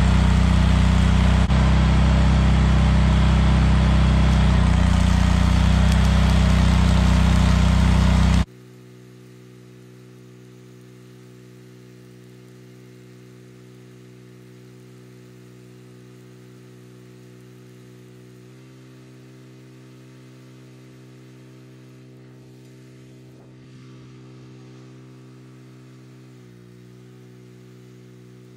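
Engine-driven welder running hard, with the steady hiss and crackle of a stick-welding arc laid over it. After about eight and a half seconds the sound cuts off abruptly, leaving only a faint, steady low hum.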